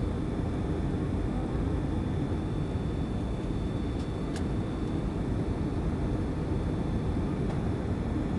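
Steady cabin noise of a Boeing 757 airliner in flight on approach: a low rumble of engines and airflow, with a faint high steady whine over it and a faint tick about four seconds in.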